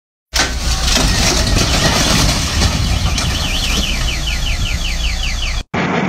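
Heavy concrete mixer truck's engine running, a loud steady noise with a strong low rumble. About halfway through, a high warbling tone sweeps up and down over it, quickening to several sweeps a second. The sound cuts off abruptly near the end.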